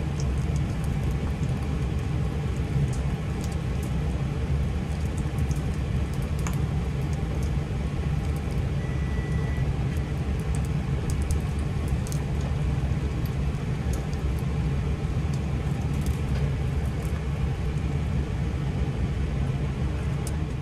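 Spring roll wrapper shallow-frying in hot oil in a frying pan: sizzling with scattered crackles over a steady low rumble, which stops suddenly at the end.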